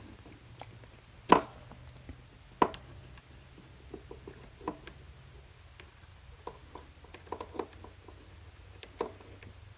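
Scattered clicks and taps of a USB-C cable and small electronics being unplugged and handled on a desk, with two sharper clicks about one and two and a half seconds in. A faint steady low hum runs underneath.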